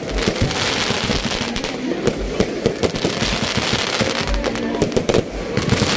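Aerial fireworks bursting in rapid succession: a dense, continuous run of bangs and crackles.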